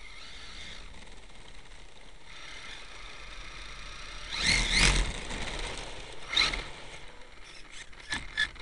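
Radio-controlled truck driving over a faint steady hiss: about halfway through, a louder burst of motor whine rising in pitch as it speeds up, then a shorter burst and a few sharp clicks near the end.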